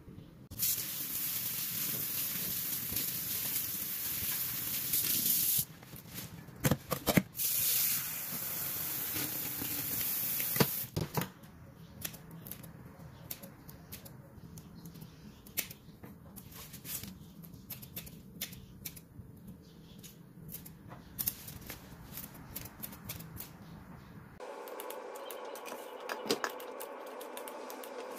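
Tap water running into a stainless-steel sink in two spells, the second stopping about eleven seconds in, then kitchen scissors snipping through sweet potato leaf stems in a run of sharp clicks.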